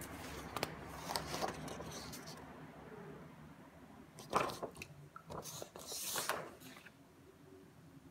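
Sheets of paper being handled and swapped, a string of short rustles and scrapes, loudest about four seconds in and again around six seconds.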